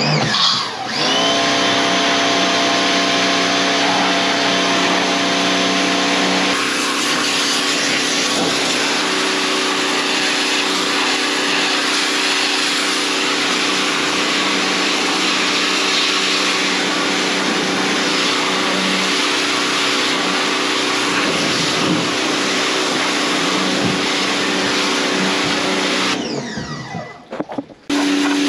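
Electric pressure washer running: a steady motor hum under the hiss of the water jet blasting the boat's wood and fibreglass. It starts at the very beginning, cuts out for a couple of seconds near the end as the trigger is released, and starts again just before the end.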